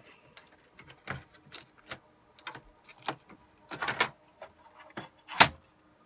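Irregular clicks and light knocks of a replacement motherboard being lowered and slid into place in an HP ProLiant DL360e Gen8 server's sheet-metal chassis, with a short cluster near four seconds and a single sharper, louder click a little past five seconds.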